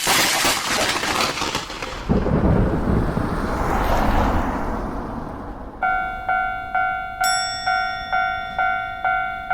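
A thunderclap: a sudden crack, then a long low rumble. About six seconds in, a railroad crossing bell starts ringing, a two-pitch clang struck about twice a second.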